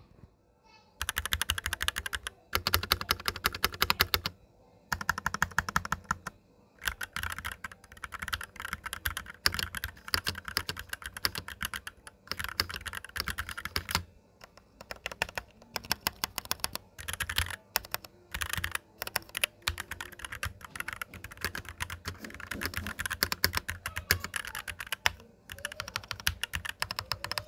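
Typing on a Shurikey Gear Hanzo 002 65% keyboard with Varmilo Sakura linear switches and doubleshot ABS keycaps: fast runs of keystrokes broken by short pauses.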